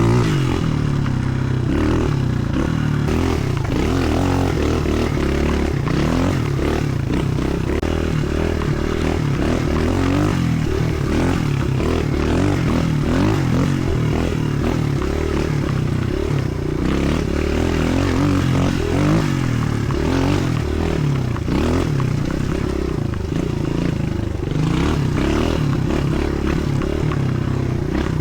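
Suzuki DR-Z125L pit bike's single-cylinder four-stroke engine, through a Pro Circuit T4 exhaust, being ridden hard: the engine note rises and falls over and over as the throttle is opened and closed.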